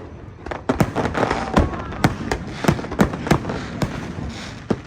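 Aerial fireworks bursting in rapid succession: a dozen or so sharp bangs in a few seconds, two or three a second, over a continuous crackle.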